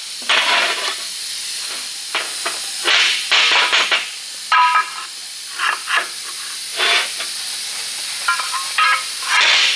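Irregular scraping and rubbing noises on metal, some with a short squeaky ring, over a steady hiss, from hands-on work on a drum-brake assembly.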